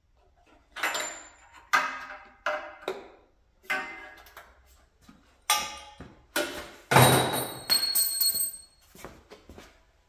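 Metal hand tools knocking and clattering: about a dozen sharp clanks, some ringing briefly like struck metal, the loudest about seven seconds in.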